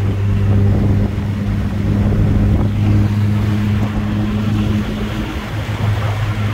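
Mazda Miata's four-cylinder engine running steadily at cruise, a constant low hum, with wind and road noise rushing through the open-top cabin.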